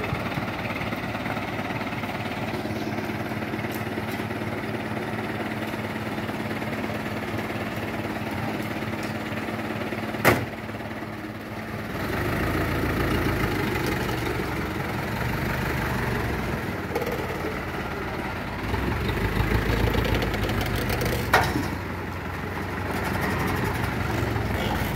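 Engine of an old light dump truck running, with a steady hum for the first twelve seconds, then a heavier low rumble as it pulls away, swelling again near the end. Two sharp clicks, one about ten seconds in and one about twenty-one seconds in.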